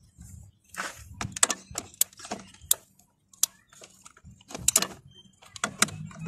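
Ratchet wrench clicking in short irregular runs as the throttle body's mounting bolts are tightened down, with metal clinks of the socket on the bolts.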